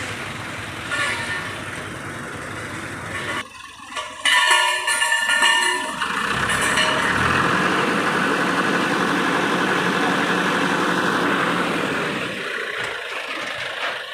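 Heavy vehicle engine noise, broken off abruptly about three and a half seconds in. A steady pitched tone with several overtones follows for about two seconds, then a louder, even engine noise that falls away near the end.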